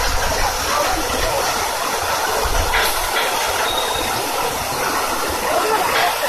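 Fountain jets spraying up and splashing back into the pool: a steady rushing hiss of falling water.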